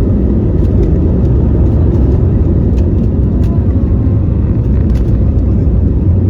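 Airliner cabin noise: a loud, steady low rumble of the engines and airflow heard from inside the passenger cabin, with a few faint clicks.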